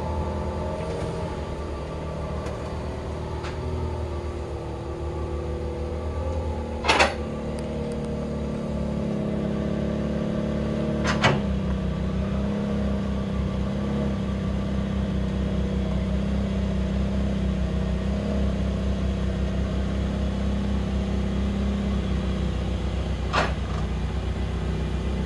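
2021 Mercedes-AMG GT Black Series's twin-turbo V8 idling steadily through its quad-tip exhaust. Three short sharp clicks sound over the idle, the loudest about seven seconds in.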